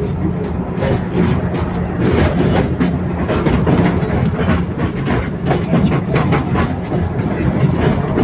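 Tatra T3SU tram running along the track, heard from on board: wheels clattering on the rails with many irregular clicks and rattles over a steady low hum.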